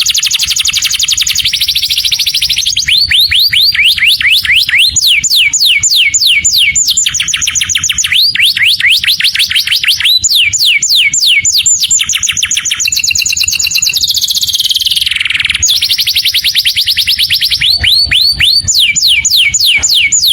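Canary singing one continuous song of fast trills, each a rapid run of repeated sweeping notes, switching to a new trill every second or two, with a harsher buzzy passage about two-thirds of the way through.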